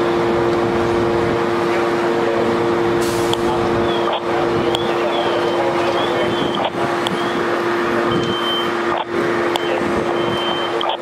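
Fire apparatus engines running steadily, an even drone with a strong steady hum. Short high beeps sound twice in the second half.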